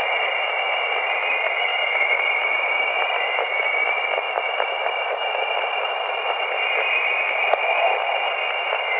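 Radio static: a steady hiss with high whistling tones over it, one of them slowly wavering up and down, heard through a narrow band like a radio receiver. It is presented as an unexplained signal recorded from space.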